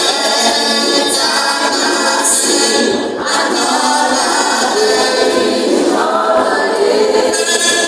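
A small group of men and women singing a cappella together in harmony.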